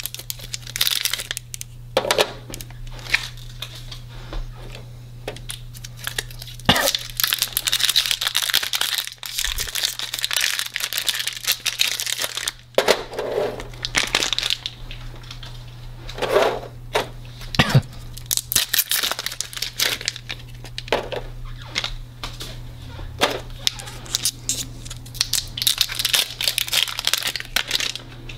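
Thin plastic cartridge bags crinkling and tearing in irregular bursts as ink cartridges are unwrapped by hand, with a few sharp knocks, over a steady low hum.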